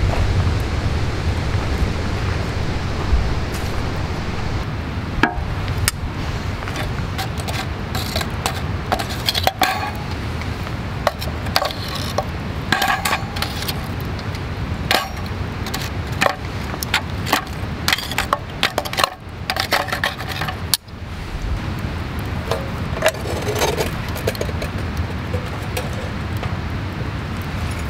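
Lump charcoal being moved with metal tongs in a tabletop charcoal grill: a scattering of light clinks and taps as the burning pieces chink against each other and the tongs. The clinks thin out toward the end.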